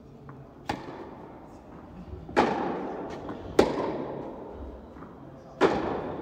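Tennis ball being struck by rackets and bouncing on the court during a rally: four sharp pops spaced one to two seconds apart, each trailing off in the echo of a large indoor tennis hall.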